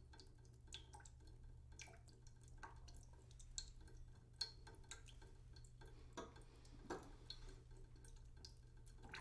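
Water dripping and trickling slowly into a cooking pot in a sink: faint, irregular drops landing a few times a second, over a low steady hum.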